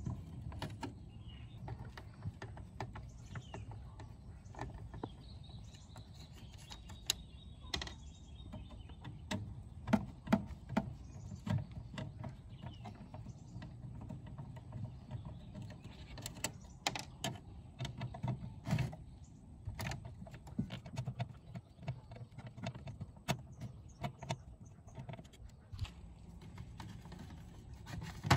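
Hand screwdriver turning out small screws from a stereo's sheet-metal chassis: scattered small clicks, scrapes and taps of metal on metal, with a sharp knock right at the end as the case is handled.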